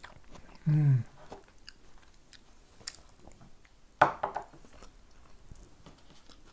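A person chewing food quietly, with small wet mouth ticks. There is a short hummed "mm" about a second in and a single sharp click about four seconds in.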